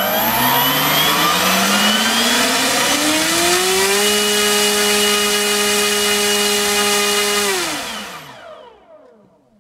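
NTM Propdrive 3842 EF-1 1300kv brushless outrunner motor spinning an 8x8 APC propeller on a 3-cell battery: it spools up with a rising whine over about four seconds, holds at full throttle for about three and a half seconds, then winds down and stops near the end.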